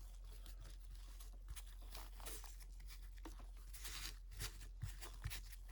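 Faint handling of trading cards and their foil pack wrapper: a few short rustling swishes, about two and four seconds in, and light taps near the end.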